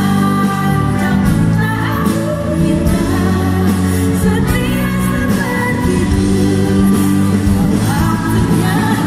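A woman singing a pop song live into a microphone, accompanied by a live band.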